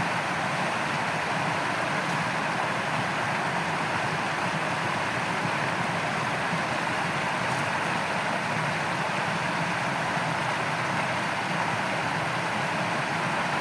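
Steady rushing of flowing water in a shallow stream, an even, unbroken noise.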